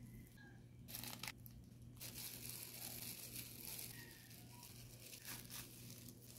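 Baking paper being peeled off a sticky slab of Turkish delight, and a plastic glove crinkling, in several short rustling bursts over a steady low hum.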